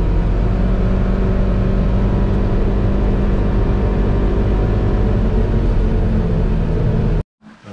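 Vehicle engine and tyre noise heard from inside the cab while driving on a snowy dirt road: a steady low drone that cuts off suddenly near the end.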